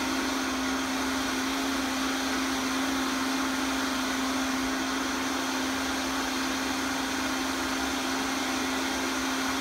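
High-speed countertop blender running steadily at constant speed, blending a green smoothie, with a steady hum over a whirring rush.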